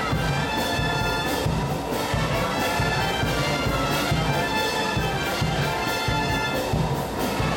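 Brass band playing a tune with a steady, even beat.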